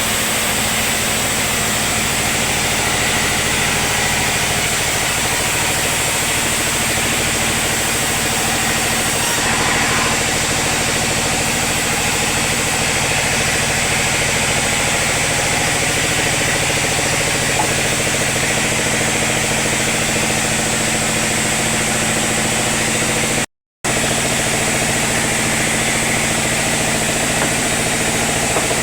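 Sawmill machinery running steadily with a constant engine-like drone. It drops out for a moment about 24 seconds in, then carries on the same.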